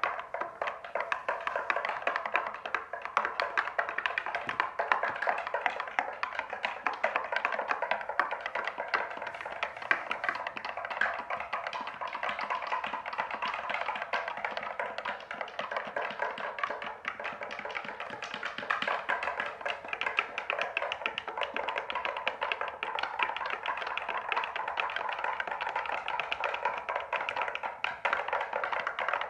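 Rapid, dense tapping and clicking that runs on without a break, like many small hard objects knocking together, with a musical, percussive feel.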